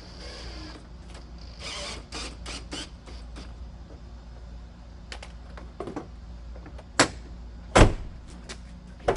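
Clicks and rattles from work on a pickup truck's door handle and latch, then loud, sharp clunks about seven and eight seconds in as the handle and latch are worked.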